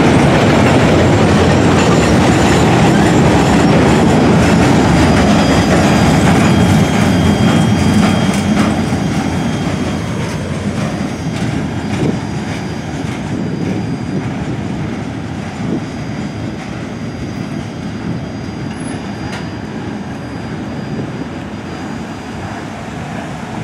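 Freight train of gondola cars rolling past: steel wheels clicking and rumbling over the rail joints. It fades about a third of the way through as the end of the train moves away.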